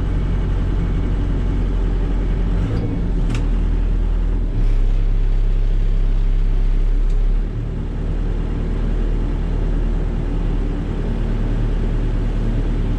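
Volvo BL70 backhoe's diesel engine running steadily, with a couple of sharp clicks about three seconds in. About four and a half seconds in the engine grows louder for about three seconds, as under load, then settles back.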